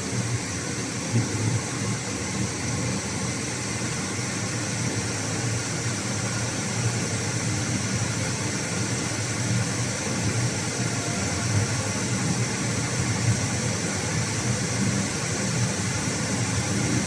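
Steady, even rushing noise with a low hum underneath while a wok and its oil heat on the stove, with no separate sizzles or knocks standing out.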